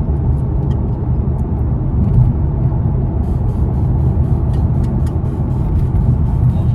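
Steady low rumble of a car in motion, heard from inside the cabin, with faint light ticks over it in the second half.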